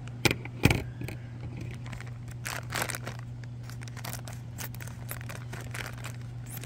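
Thin plastic toy bag crinkling and rustling as it is handled and cut open with scissors, with two sharp clicks within the first second as the loudest sounds. A steady low hum runs underneath.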